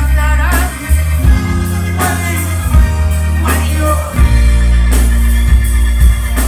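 A band playing live with bass, drums, electric guitars and keyboard. Loud held bass notes change pitch every second or so under regular drum hits.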